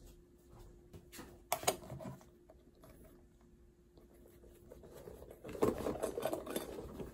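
A plastic yogurt tub and spoon being handled and packed into a leather handbag: a few light knocks and clicks, then a spell of rustling and scraping near the end as hands work inside the bag.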